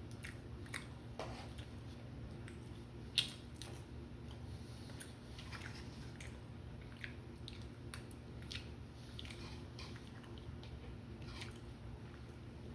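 A person chewing and biting food close to the microphone: scattered wet mouth clicks, with one sharper click about three seconds in.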